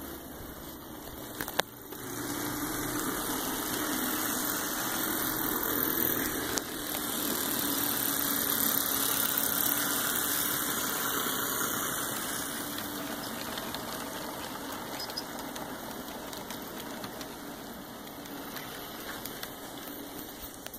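Model train running along its track: the motors and wheels of two GP40-2 model diesels and their cars make a steady running noise that grows louder as the locomotives pass close by, then slowly fades as the train moves away. A single sharp click sounds about one and a half seconds in.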